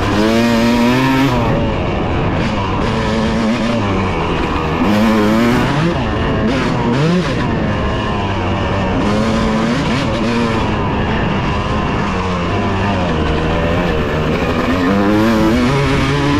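Dirt bike engine under hard riding, its pitch climbing and dropping every couple of seconds as it is throttled up and backed off through the gears.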